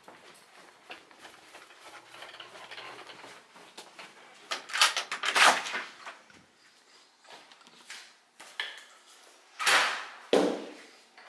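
Knocks, clicks and clatter of hard objects being handled and set down, with a cluster of loud strikes about five seconds in and two more loud knocks near the end.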